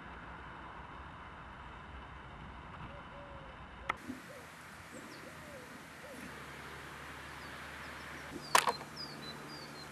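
Birds calling over a steady faint hiss: several low, arching coo-like calls, then a few short high falling chirps near the end. A sharp click about four seconds in and a louder one near the end.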